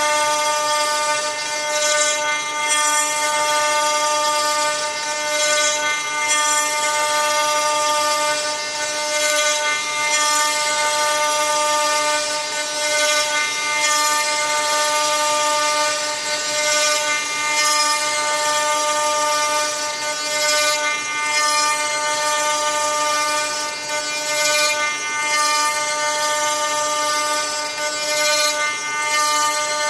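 CNC router spindle milling a wooden block, a steady whine of evenly spaced tones over a hiss of cutting, its level rising and dipping a little as the bit moves through the wood.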